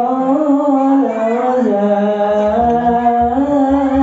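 A single voice singing long, slowly gliding held notes of a shalawat chant over a sound system. A low, regular beat joins in near the end.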